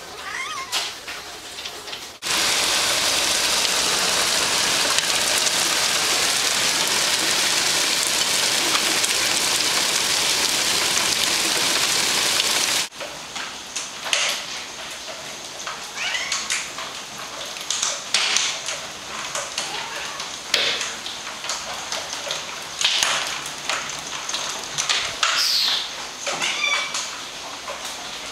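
Heavy rain and hail storm, a loud steady hiss that starts abruptly about two seconds in and cuts off just as abruptly some ten seconds later. Afterwards it is much quieter, with several short high-pitched cries.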